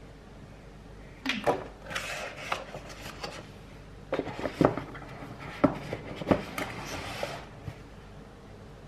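Cardboard packaging of a Google Nest Mini being handled: sharp knocks, rubbing and rustling as the speaker is lifted out of its box and turned over, in two spells starting about a second in and about four seconds in.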